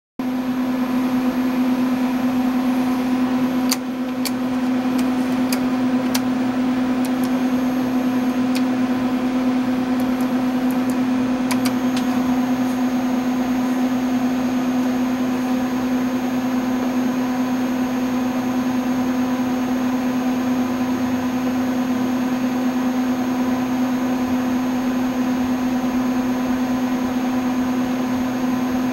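PDP-8/M minicomputer's cooling fans and power supply running with a loud, steady hum. About four seconds in, a string of sharp clicks from its front-panel toggle switches runs for several seconds as the switches are set and the diagnostic is started.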